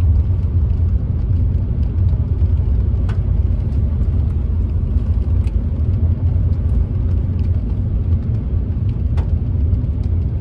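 Steady low rumble of an idling pickup truck, heard from inside the cab, with a few faint ticks.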